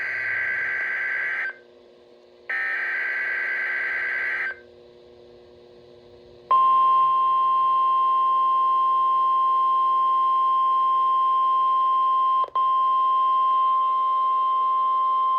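Two bursts of the NOAA Weather Radio SAME digital header, a harsh warbling data screech, then the steady single-pitch National Weather Service warning alarm tone, held for about nine seconds with a momentary dropout. Together they signal an Emergency Alert System warning, here a severe thunderstorm warning, about to be read.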